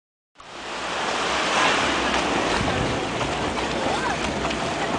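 Beach ambience: a steady rush of wind on the microphone and small waves lapping the shore, with faint chatter from a crowd. It cuts in out of silence about half a second in.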